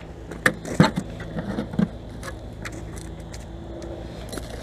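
A few knocks and clatters of ice-fishing gear being handled and set down on the ice, the sharpest about half a second and a second in, over a steady low hum.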